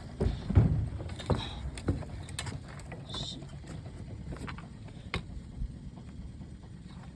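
Scattered knocks and bumps of gear being handled in a small fishing boat, over a low steady rumble. The knocks are most frequent in the first two seconds, with a short higher scrape about three seconds in and one sharp knock about five seconds in.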